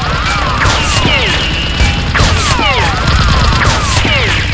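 Dubbed-in toy-gun battle sound effects: volleys of falling, laser-like zaps with short bursts of gunfire noise, about one volley a second, over background music with a steady low beat.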